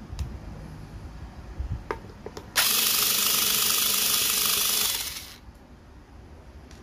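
A few light clicks, then a FISCH 3.6 V cordless screwdriver with a keyless drill chuck fitted runs for about two and a half seconds, a steady whir that winds down at the end.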